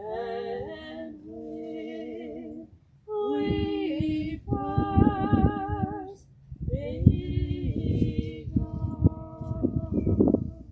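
A woman singing slowly, holding each note for a second or so with a wavering vibrato, in short phrases separated by brief breaths.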